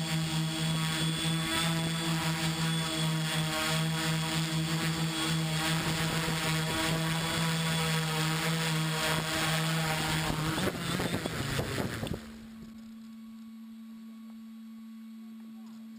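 XAircraft X650 V4 quadcopter's electric motors and propellers buzzing steadily, heard from the GoPro mounted on the craft. About eleven seconds in, the pitch wavers and the buzz cuts off about a second later, leaving a quieter steady low hum.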